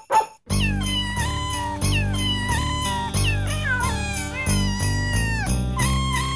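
Novelty Christmas song sung with recorded cat meows pitched to carry the tune, each note sliding down at its end, over a backing track with a steady bass. The song starts about half a second in.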